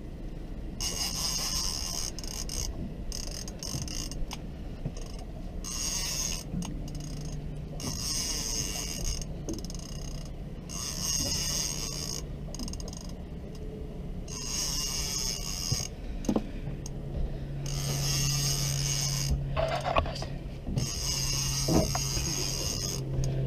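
Fishing reel being wound in stop-start bursts of about a second each, its gears and clicker ratcheting, while a hooked fish is played on a bent trolling rod. A steady low hum comes in past the middle.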